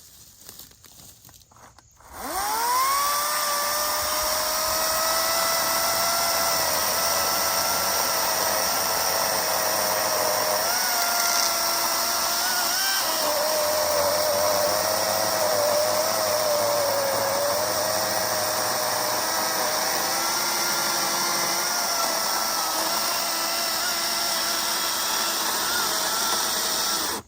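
EGO 56-volt battery-powered chainsaw with a 16-inch bar, cutting through a thick log. About two seconds in it spins up with a rising whine, then runs steadily. Its pitch dips now and then as the chain bites under load, and it cuts off at the end.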